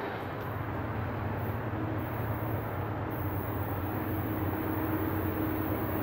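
Diesel freight locomotive approaching, its engine a steady low rumble with a hum that comes in about a second and a half in.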